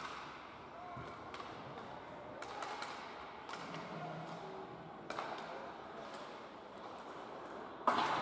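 Ice hockey game sounds in an indoor rink: scattered sharp clacks of sticks and puck over a steady hall hum with faint voices, then one loud crack near the end.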